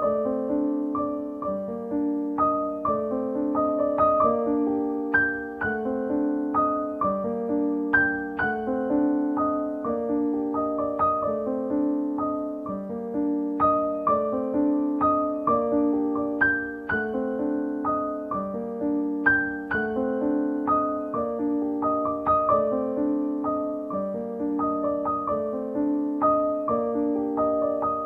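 Background piano music: a gentle, repeating pattern of notes with a steady pulse.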